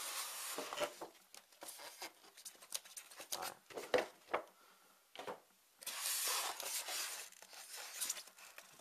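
Packaging being handled: rustling and scraping of cardboard, paper leaflets and a styrofoam insert, with many small knocks. There are two longer stretches of hissing rustle, one at the start and one about six seconds in.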